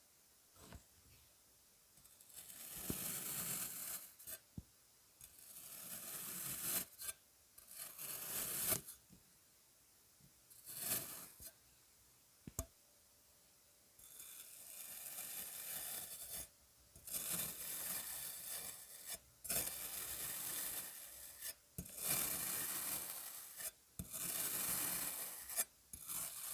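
Kinetic sand being cut with a blade, a series of crunchy cutting passes, each one to three seconds long, with a few short taps in the gaps between them.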